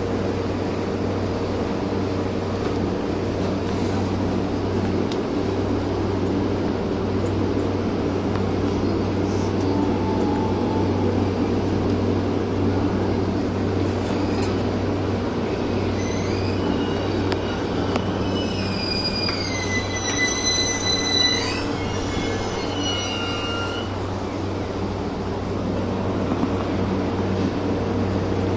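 Steady hum of an electric commuter train standing still at a station platform, its onboard equipment running. From about halfway through, a high squealing whine comes in for several seconds, its pitch stepping up and down, then stops.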